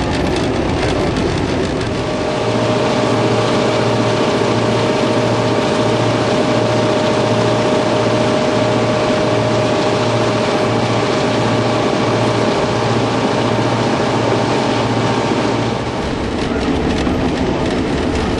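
T-class diesel-electric locomotive running under way, heard from the cab: a steady engine note over the noise of wheels on rail, with a regular low pulsing somewhat under two beats a second through most of the stretch.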